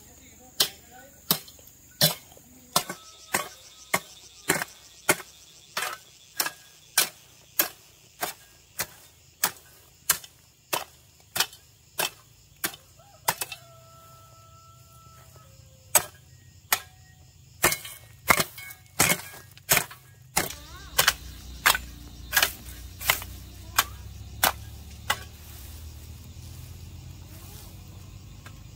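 Steady rhythmic chopping, a hand tool striking about three times every two seconds with a short pause about halfway through. A steady high insect drone runs beneath the strikes in the first half.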